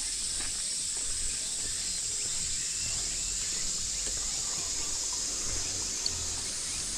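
Summer cicadas droning in a steady, even chorus, with a few faint bird chirps.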